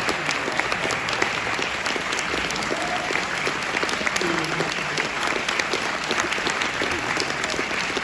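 Audience applauding: many hands clapping steadily, with a few voices heard faintly over the clapping.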